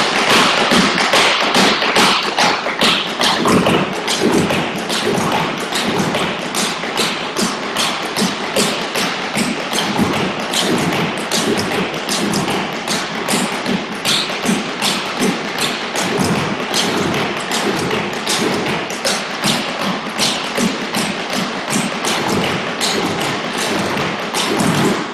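Tap shoes striking portable wooden tap boards: several dancers tapping a fast, continuous pattern together, a dense run of sharp clicks and thuds that stops suddenly near the end.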